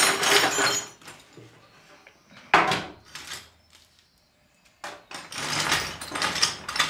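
Loose metal hardware (screws, bolts and small scrap) clattering as it is tipped out of a metal box onto a workbench, dying away about a second in. Then one sharp knock as the box is set down, a few clinks, and from about five seconds in the pieces rattle again as they are raked through by hand.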